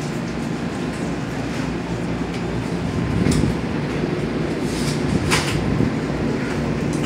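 Light-rail train standing at an underground station platform, with a steady low hum. A short sharp click comes about three seconds in and a brief hiss about five seconds in.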